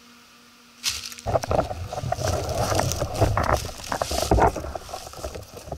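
Loud rustling, scraping and knocking from a metal detector with a camera on its shaft being handled and moved over leaf litter, starting about a second in. Before that a faint steady hum can be heard.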